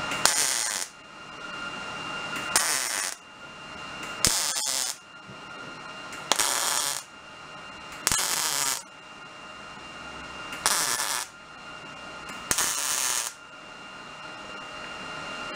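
MIG welder laying a row of tack welds on thin sheet steel: seven short bursts of crackling arc, each about half a second and about two seconds apart, with a steady hum between them. The welds are stitched one beside the next to build up a continuous seam along a repaired panel.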